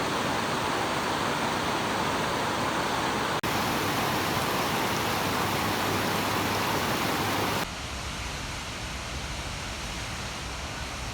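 Steady rushing water of a waterfall, really loud, broken by two sudden cuts; after the second, about two thirds of the way in, it is quieter with more low rumble.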